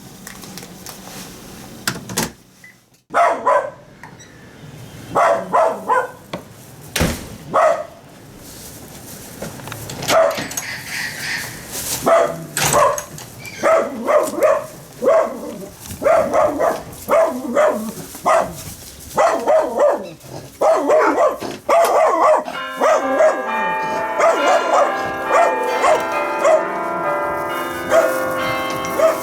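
A dog barking repeatedly in short, irregular runs. About three-quarters of the way through, music with sustained chiming, bell-like notes comes in.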